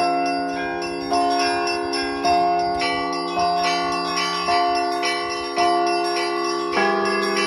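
Russian Orthodox church bells rung by hand by a bell-ringer: layered ringing tones, with a strike about every second over lighter strokes of smaller bells. The chord of bells shifts near the end.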